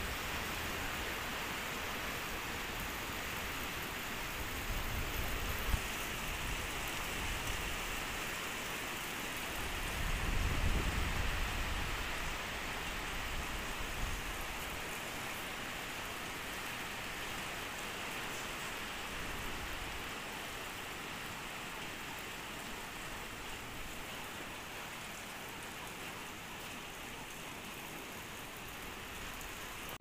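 Steady heavy rain falling, with a low rumble swelling about ten seconds in.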